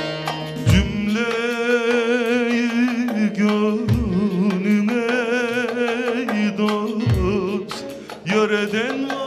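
Turkish folk music on bağlama and electronic keyboard: a long melodic line with wide vibrato over a deep drum beat that falls three times, about three seconds apart.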